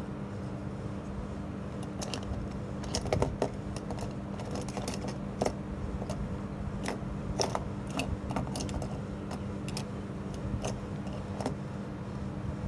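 Scattered light clicks and taps as ALPS motor fader units are handled and set down side by side on a workbench, over a steady low hum.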